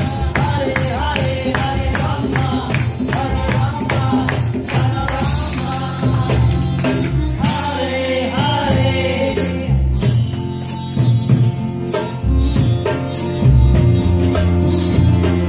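Live kirtan music: women's voices singing a devotional chant over percussion keeping a steady beat, with bowed cello and sitar. The singing thins out about two-thirds of the way through while the instruments carry on.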